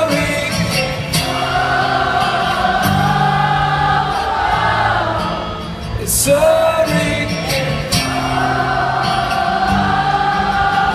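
Live acoustic guitar chords amplified through a concert PA, with long held sung notes from many voices together, a crowd singing along.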